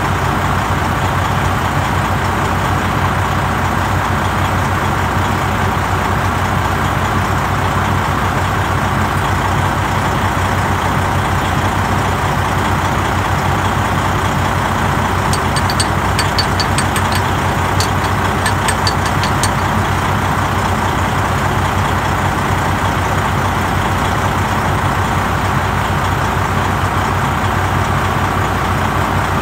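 Heavy truck engine idling steadily, with a constant low hum. A quick run of faint high ticks comes about halfway through.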